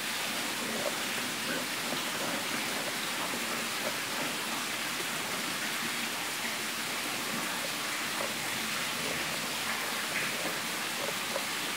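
Wire whisk stirring thin pancake batter in a plastic bowl: a steady, even swishing.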